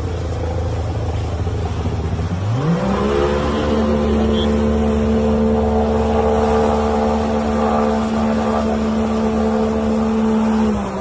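A vehicle's engine running under load while driving through deep river water; about two and a half seconds in it revs up to a higher, steady pitch and holds there, easing off slightly near the end.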